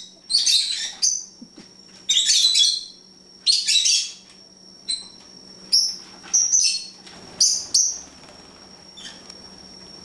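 Pet lovebirds bickering: three bursts of shrill, high chattering in the first four seconds, then shorter single chirps that thin out near the end.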